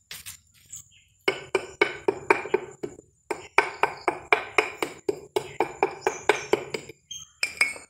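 A wooden block knocking against a cast cement piece in quick, even strikes, about four to five a second: a short run, a brief pause, then a longer run and two last knocks near the end.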